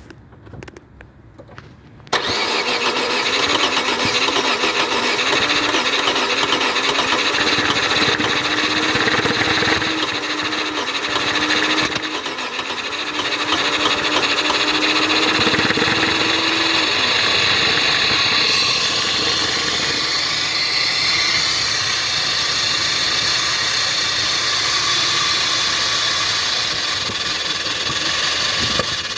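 Opel Corsa engine being cranked on the starter motor, a hard-start problem. After about two seconds of quiet it starts sounding loudly and continuously, with a steady whine that drops away about halfway through while the engine noise carries on.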